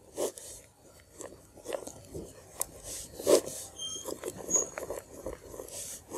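Pen scratching on paper as working is written out by hand: irregular short strokes and taps.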